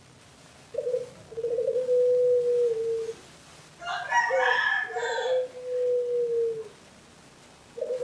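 Spotted dove cooing: two low phrases, each a short note followed by a longer, steady coo, about three and a half seconds apart. About four seconds in, a higher-pitched call from another bird overlaps the second phrase.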